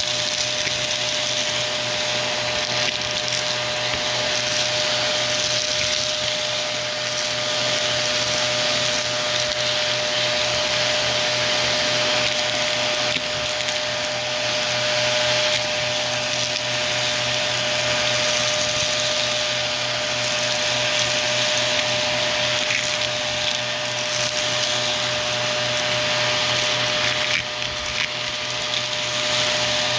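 Vacuum cleaner running steadily: a constant high motor whine over the rush of suction air, with a few brief crackles in the second half.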